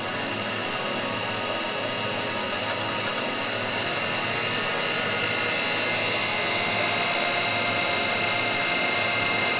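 A steady mechanical whirring with a high whine, slowly growing louder.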